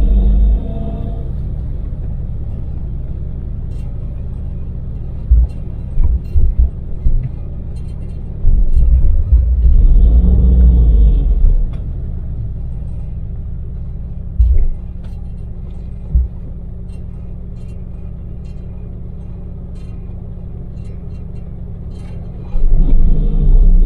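Daewoo Damas microvan driving at steady speed, its small engine and tyres making a continuous low drone and hum. Short heavy low rumbles break in several times: around 5–7 seconds, for about three seconds from roughly 8.5 seconds, briefly near 14.5 and 16 seconds, and again near the end.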